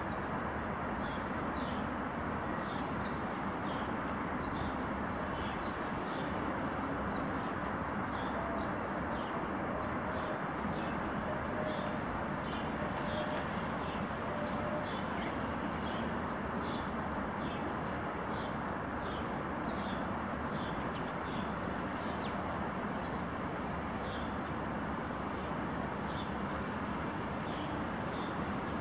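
Steady hum of distant traffic, with small birds giving short high chirps over and over, about once or twice a second. A few faint low cooing notes, like a dove's, come in the middle.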